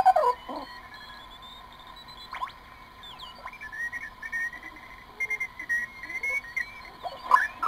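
Loudspeaker audio from a one-tube regenerative receiver oscillating on the 80 m band: heterodyne whistles slide in pitch as the tuning dial turns, over a steady whistle. Near the end the tones glide again as a hand comes close to the panel, a sign of how touchy the set is to hand capacitance.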